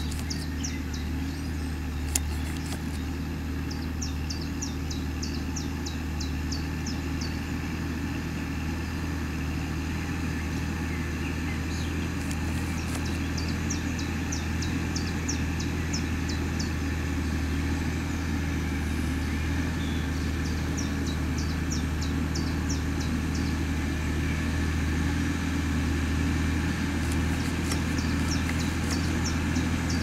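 Massey Ferguson 6465 tractor's diesel engine running steadily under load as it pulls a plough through the field, a low even drone that grows slowly louder toward the end as the tractor draws closer.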